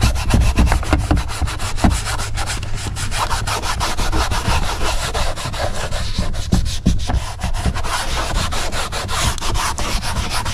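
An ultra-fine Scotch-Brite hand pad scuffing the vinyl surface of a car console in rapid back-and-forth strokes, a steady scratchy rubbing. The vinyl is being roughed up so that paint has something to stick to.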